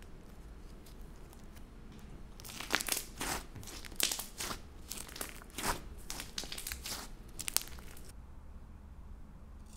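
Thick white borax slime squeezed and kneaded by hand, giving a rapid run of sharp pops and clicks as trapped air is pressed out of it, starting about two seconds in and stopping about eight seconds in.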